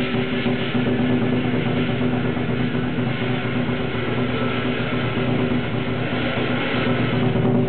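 Chinese lion dance percussion: a big drum played in a fast, continuous roll with cymbals, loud and unbroken.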